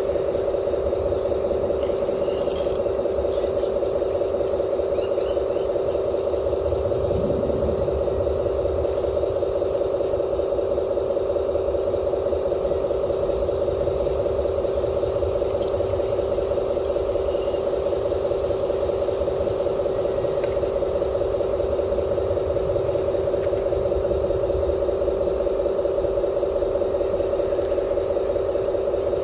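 Steady, even engine-like hum from the radio-controlled excavator and dump truck models, with a low rumble under it and a few faint ticks.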